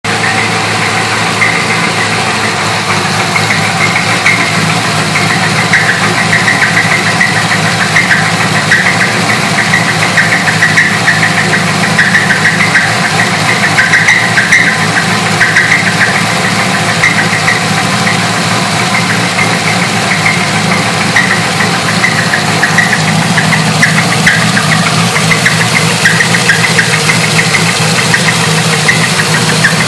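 Chevrolet Corvette engine running steadily with a knock from a bad rod bearing.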